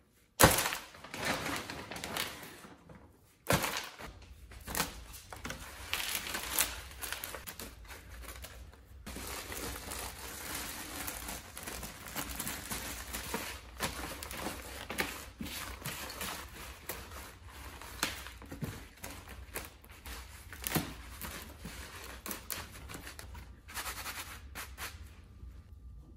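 Loose coco peat poured into an empty plastic storage tote and then worked and spread by gloved hands: a dry, crinkly rustling and crumbling, with a few sharper knocks against the plastic.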